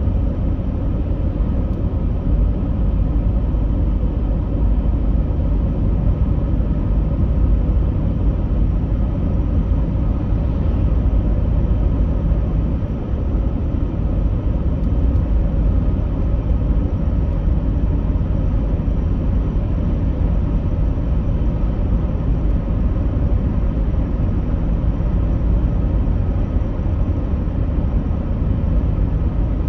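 Steady low rumbling drone, loud and unchanging, with faint steady hum tones running through it.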